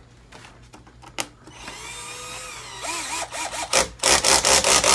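Cordless drill driving a screw into a window air conditioner's side panel. The motor whines up about a second and a half in, and near the end there is a loud, rapid rattling as the screw is driven.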